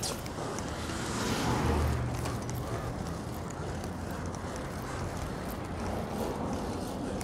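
Wind rushing over a GoPro's microphone and road noise while a fixed-gear bike is ridden, with a louder swell about a second and a half in.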